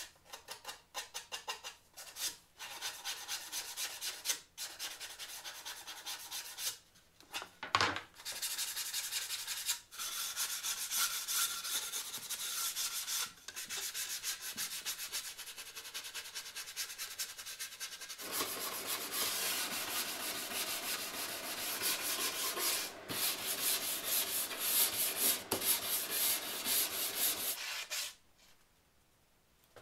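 Hand work on plywood boat panels: continuous rubbing and scraping of wood on wood, like hand sanding. It becomes a fuller, coarser rasping about 18 seconds in and stops shortly before the end.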